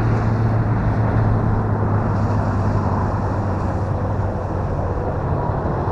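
Electric motor and propeller of a Carbon Cub S2 RC plane droning steadily in flight, with a rushing noise behind it. Its pitch shifts slightly about five seconds in.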